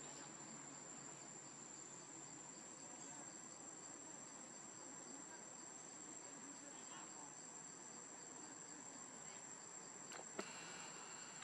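Faint, steady high-pitched insect chorus, with a softer pulsing note beneath it. A single short click near the end.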